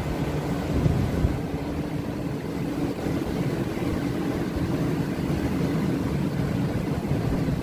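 Garlic sorting machine running with a steady mechanical drone.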